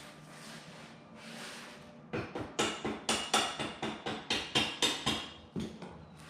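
Rapid metallic taps, about a dozen over three and a half seconds, each ringing briefly: a hammer tapping the motorcycle's rear axle to drive it out. They start about two seconds in and stop about a second before the end.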